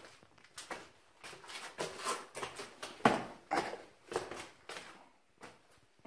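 Irregular footsteps and scuffs of a person moving over rock inside a small cave, a few strokes a second, with a sharp knock about three seconds in.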